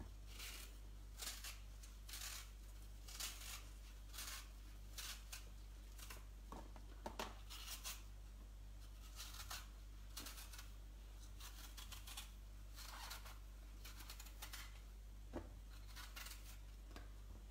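Vegetable peeler scraping strips of skin off an apple: short, faint rasping strokes, one or two a second, in an uneven rhythm.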